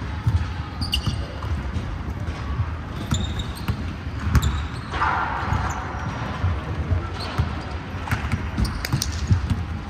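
Basketballs bouncing on a hardwood gym floor in repeated knocks that ring in the big hall, with short high squeaks from sneakers now and then.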